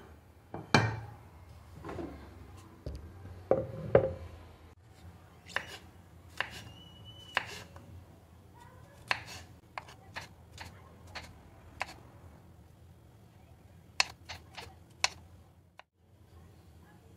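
Kitchen knife slicing fresh button mushrooms on a wooden cutting board: irregular sharp taps of the blade on the board. A few heavier knocks come in the first four seconds.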